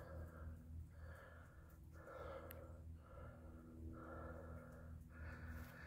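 A person breathing faintly close to the microphone, a breath sound about once a second, over a steady low hum.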